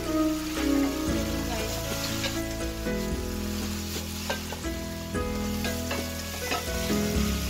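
Udon noodles and cabbage sizzling in a frying pan as a spatula stirs and tosses them, with scattered clicks of the spatula against the pan. Background music with held chords plays underneath.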